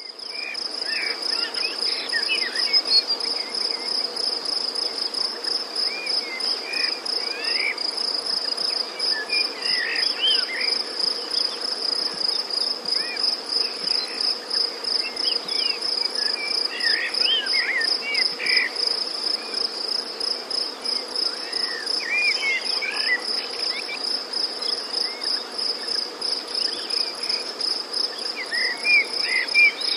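A steady, high, pulsing insect trill, with songbirds chirping in short phrases every few seconds.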